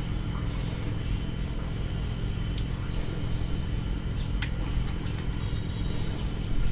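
A steady low motor hum, even throughout, with a few faint clicks over it.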